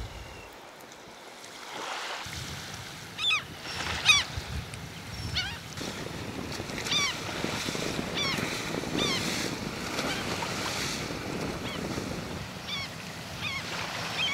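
Wind and small waves on an open sandy shore. Birds give short, high, falling calls every second or so after the first few seconds.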